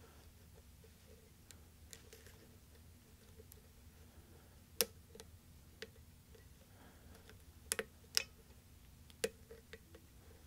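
Hook pick ticking and scraping against the pins inside a weathered 5-pin Schlage pin-tumbler lock during single-pin picking, with about five sharper clicks in the second half.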